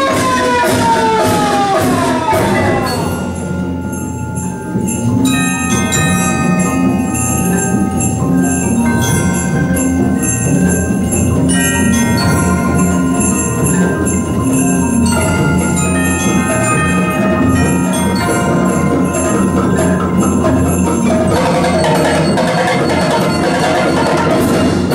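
Percussion ensemble playing: gliding tones in the first three seconds, then ringing tubular bells and mallet keyboards (glockenspiel, marimba) over a repeating low figure, growing denser near the end.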